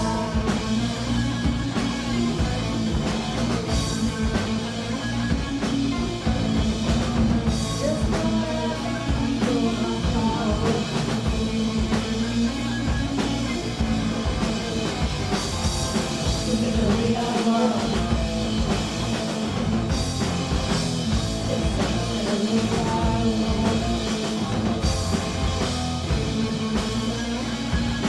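Punk rock band playing live, with distorted guitar, bass, drum kit and singing, recorded from the audience.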